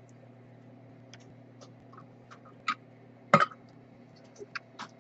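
Sparse small clicks and light taps of soldering tools on a workbench, with one louder knock a little over three seconds in, over a steady low hum.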